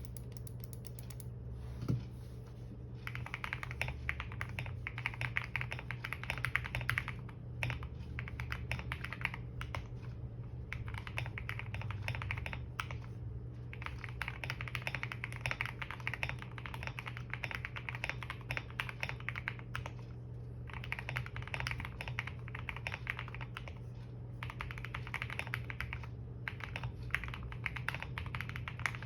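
Fast typing on a QK65 mechanical keyboard: a dense stream of keystroke clicks in runs of a few seconds, with short pauses between runs. The typing starts about three seconds in, and a steady low hum runs underneath.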